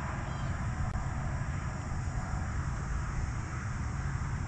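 Steady low rumble with a light hiss, typical of wind buffeting the camera microphone as a pedal kayak moves over open water.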